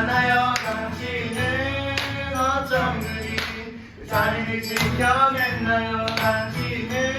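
A small group singing a Christian worship song, male and female voices over instrumental accompaniment with a steady percussive beat. The singing breaks off briefly about four seconds in, between phrases.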